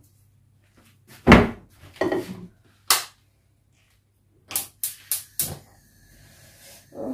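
Knocks and clatters of a steel two-handled pot being taken out of a kitchen cupboard and handled, with the cupboard door banging; about six separate hits, the loudest about a second and a half in.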